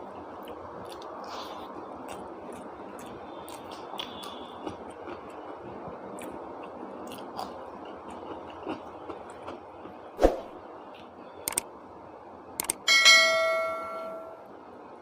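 Eating sounds with small clicks and taps over steady background noise. Near the end a piece of metal tableware is struck and rings clearly, dying away over about a second and a half.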